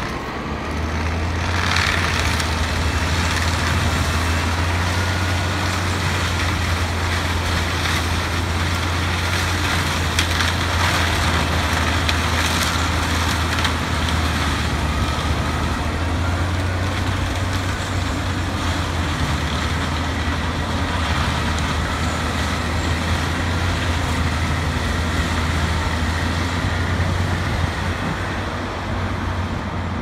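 Tractor-driven forestry mulcher at work clearing young trees and brush: a steady low engine drone under a dense noise of the rotor shredding wood.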